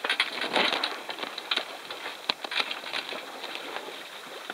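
Water splashing and slapping along the hull of a sailboat under way, an irregular crackling patter that is strongest in the first second or so.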